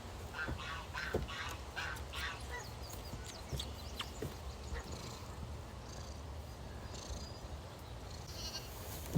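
Farm animals calling: a quick run of short calls in the first two and a half seconds, then scattered fainter ones, over a low steady rumble.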